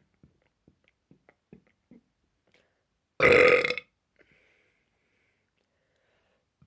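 A person's single loud burp, lasting under a second, about three seconds in.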